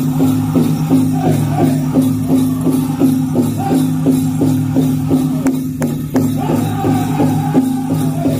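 Powwow drum group playing a chicken dance song: a big drum struck in a fast, even beat of about three strokes a second, under several voices singing together in held notes.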